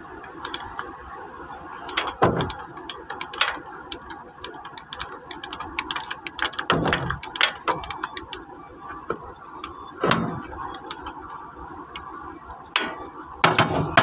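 Ratchet socket wrench clicking in quick irregular runs while turning the bolts of a crane boom base pin lock cylinder during its removal, with several louder metal knocks.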